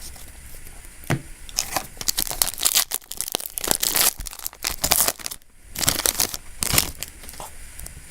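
Foil trading-card booster pack wrapper being torn open and crinkled: a run of crackly rustling tears starting about a second in, with a brief lull a little past the middle.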